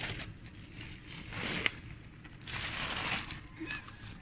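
Black plastic bag crinkling in two bursts, about a second and a half in and again around three seconds in, with a sharp click at the end of the first.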